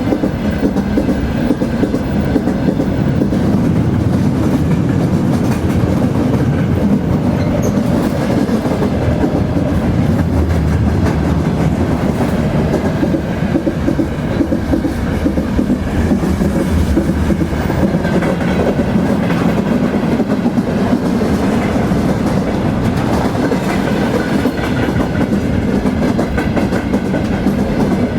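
Train rolling steadily along the track: a continuous low rumble with constant fine clatter of wheels on rail, unchanging throughout.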